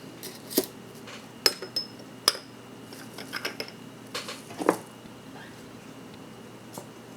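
Metal watch expansion band clinking against its container as it is handled for a lighter-fluid soak: a handful of sharp clinks, two of them ringing briefly, then quiet handling.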